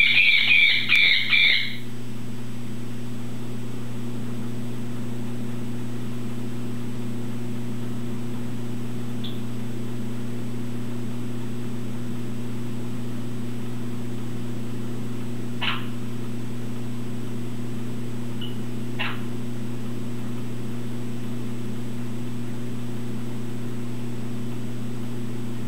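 A parrot gives a quick string of about six loud squawks in the first two seconds, then only a few faint, short chirps further on. A steady low hum runs underneath throughout.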